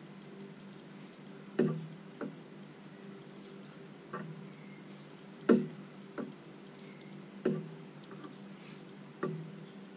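Irregular sharp clicks and taps, about seven in ten seconds, as a thick leader line is worked by hand up inside a hollow Dacron sleeve. A low steady hum runs underneath.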